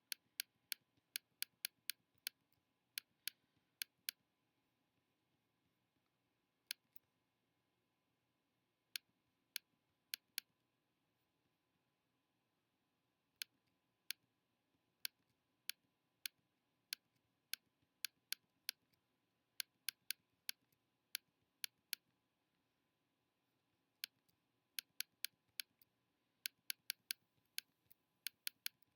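Computer mouse clicking at an uneven pace: single clicks and quick runs of several, with a few short pauses, over a quiet room.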